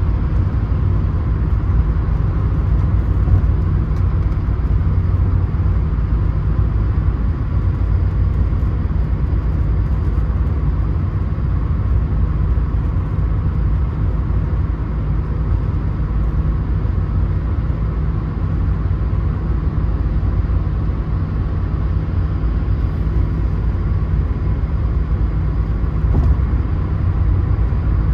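Steady in-cabin road noise of a Mercedes-Benz car cruising at motorway speed, mostly a low rumble with no changes in pace.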